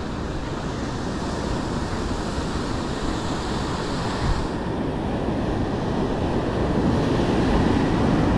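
Ocean surf breaking over shoreline rocks: a steady rushing wash of waves that grows louder near the end.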